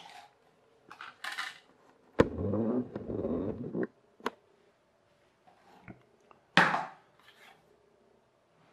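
Jigsaw-style toy track tiles and small plastic toy parts being handled and set down on a wooden floor: scattered taps and clicks, a sharp click followed by a steady scraping sound of about a second and a half about two seconds in, and a short, louder rustle near seven seconds.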